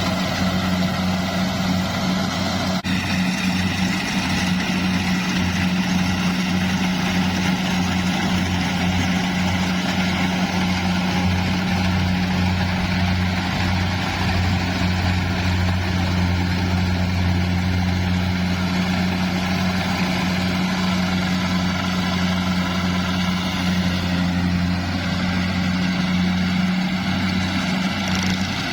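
Engine of a rice-field harvesting machine running steadily with a strong low hum and mechanical clatter, one brief click about three seconds in.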